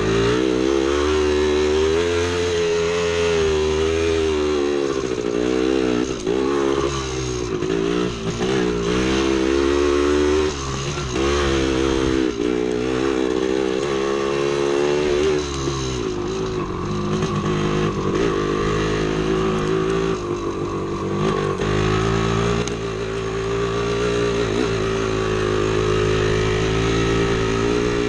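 1975 Yamaha DT250B's single-cylinder two-stroke engine running hard on a trail ride, its revs rising and falling again and again as the throttle is worked.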